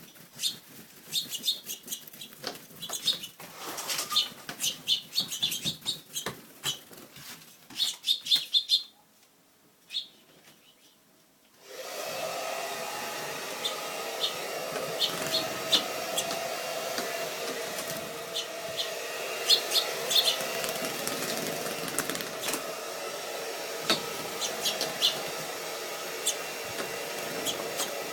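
Small finches chirping in short high peeps, with fluttering and small clicks, for about nine seconds. After a brief lull, a steady whirring noise, like a fan or dryer, starts about twelve seconds in and runs on under more scattered chirps.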